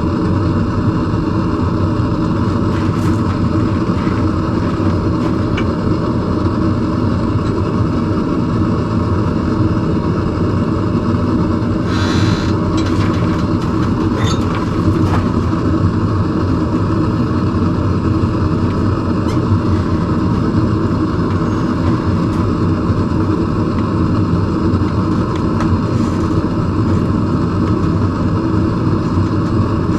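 Forge running steadily while the tong handles heat: a loud, even roar with a constant hum under it, and a short clink-like noise about twelve seconds in.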